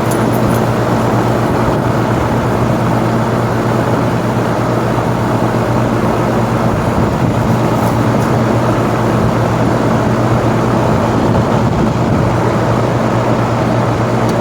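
Weatherking 1.5-ton two-stage heat pump running in heat mode: a steady rush of the fan with a steady low hum from the compressor.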